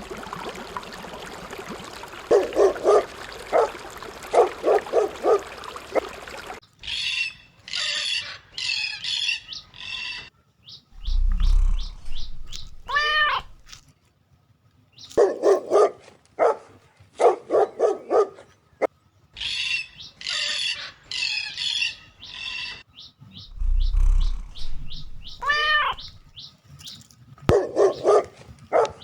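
A dog barking in quick runs, mixed with birds' chirps, squawks and a whistle that falls in pitch.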